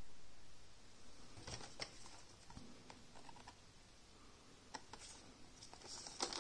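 A small cardboard box being picked up and turned over in the hands: scattered light taps, clicks and rustles of the cardboard, the sharpest cluster near the end.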